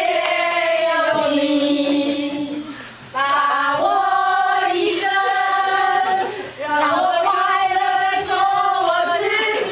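A group of women singing together in unison, holding long notes in three sung phrases with short breaks between them.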